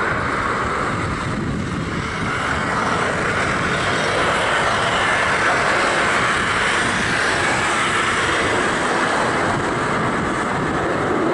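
Boeing 737-900ER's CFM56-7B jet engines at takeoff thrust, heard across the airfield as a steady rushing jet noise that grows a little louder over the first few seconds as the airliner rolls, lifts off and climbs.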